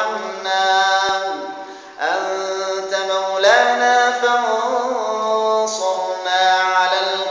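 A man's unaccompanied voice chanting Quranic verses in melodic tajweed recitation, holding long ornamented notes. There is a brief break about two seconds in before the next phrase.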